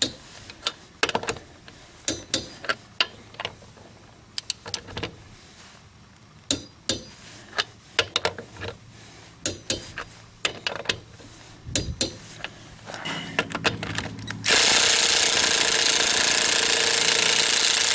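A run of separate sharp clicks and metal knocks as tools are handled on the wheel, then the Ryobi P261 cordless half-inch impact wrench hammering on a lug nut for about three and a half seconds, stopping abruptly near the end.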